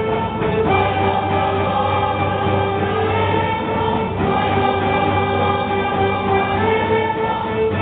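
A folk choir singing a traditional song from the Krajište region of southeastern Serbia in long held notes, each a second or two long, stepping from one pitch to the next.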